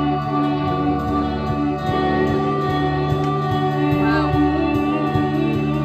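Live psychedelic jazz band playing. A drum kit keeps a steady beat with regular cymbal ticks under electric guitar and long held notes, with a short sliding note about four seconds in.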